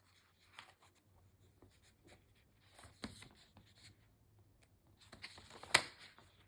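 Faint rustling of paper as a book's pages are handled, with scattered small clicks and one sharp click near the end.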